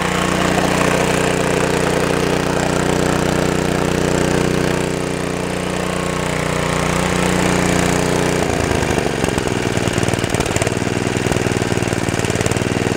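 Small snowblower engine, running with no air filter, running steadily now that fuel has got through the line. About eight seconds in it drops to a slower, choppier speed with separate firing beats.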